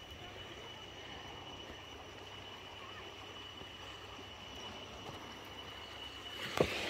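Calm beach ambience: a low, steady wash of gentle sea and open air, with a thin, steady high-pitched whine running through it. Near the end there is a sharp knock, and then the noise grows louder and rougher.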